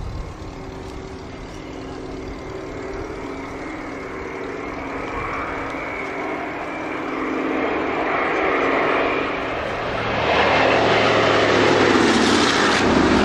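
Propeller-driven piston-engined airplane growing steadily louder as it approaches, then passing close from about ten seconds in, its engine pitch falling as it goes by.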